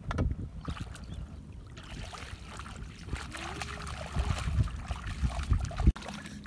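Bare feet wading and splashing through shallow muddy water, with irregular sloshing that grows busier about two seconds in. A single sharp knock near the end.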